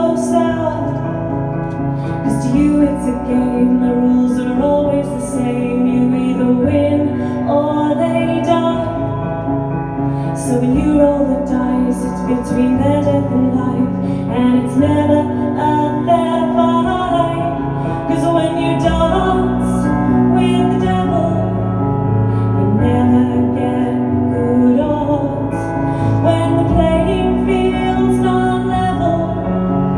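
A woman singing a slow song while accompanying herself on a keyboard: held chords under her vocal melody.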